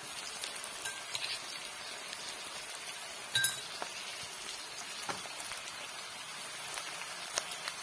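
Sliced onions, garlic and dried red chillies sizzling and crackling in hot oil in an iron kadai. A sharp metallic clink rings out about three and a half seconds in, with a lighter click near the end.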